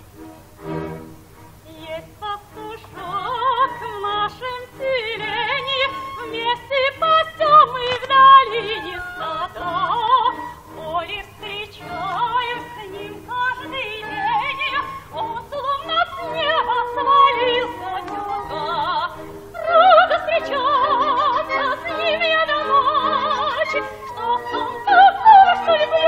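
Operetta singing with orchestra, from a 1947 recording: a quiet orchestral opening, then a voice with wide vibrato over the orchestra from about two seconds in.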